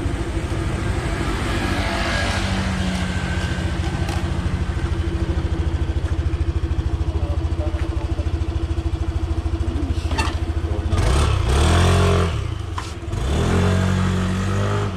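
Single-cylinder engine of a Yamaha Aerox scooter idling with a steady pulsing beat, then revved up and let back down twice near the end.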